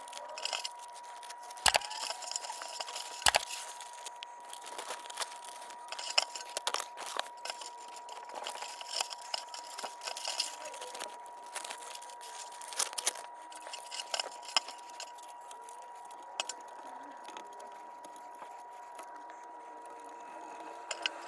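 Rustling and crinkling handling noises with scattered sharp clicks, over a faint steady high-pitched tone.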